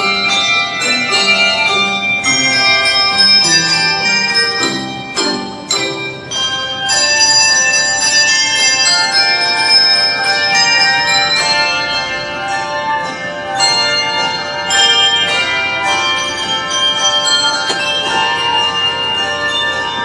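A handbell choir playing a piece of music: many tuned handbells struck in turn and together, their notes ringing on and overlapping into chords.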